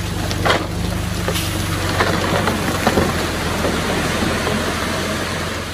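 Small crawler bulldozer's diesel engine running steadily under load, with a dense crackle and rattle of stone and gravel being pushed and tumbling.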